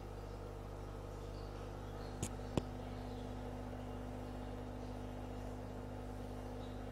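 Aquarium pump humming steadily, with two short sharp clicks half a second apart a little over two seconds in.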